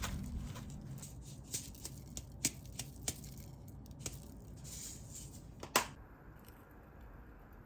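Scattered light clicks, taps and rustles of small objects being handled, with one sharper knock about six seconds in.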